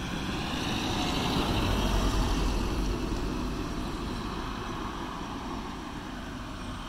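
Renault Mégane Coupé driving past: engine and tyre noise swell to a peak about two seconds in, then ease off, with wind on the microphone.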